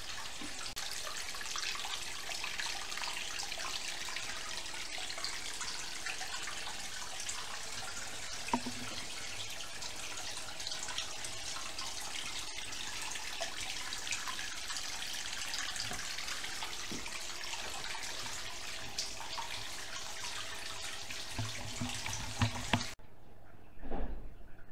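Steady trickle and splash of water running into the caiman tank's water section, as from the tank filter's outflow. It cuts off suddenly near the end, and a brief low bump follows.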